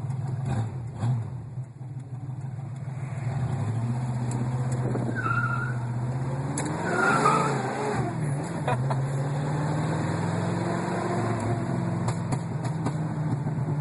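1982 Mercury Capri RS 5.0 V8 running with the muffler detached behind the catalytic converters, giving a loud, open-exhaust note. The engine holds a steady pitch, then revs up and back down about seven seconds in before settling again.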